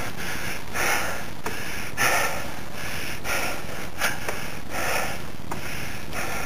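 Mountain-bike rider breathing hard in a quick, steady rhythm, a puff of breath about every half second, over a steady hiss of riding noise, with a couple of sharp clicks from the bike.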